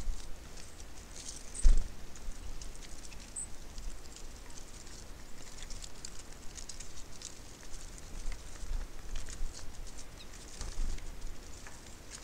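Birds at a seed feeder: a steady patter of light ticks and taps from pecking and scrabbling, with one loud knock about two seconds in, and a low rumble underneath.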